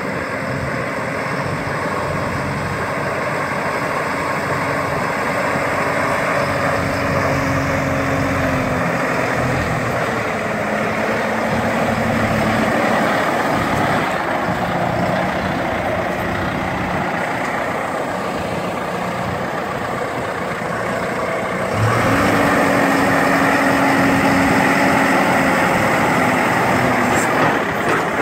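John Deere 6120E tractor's four-cylinder diesel engine running steadily, its pitch shifting a little as it moves. About three-quarters of the way through it speeds up and gets louder, holding a higher steady note while the H310 loader is raised.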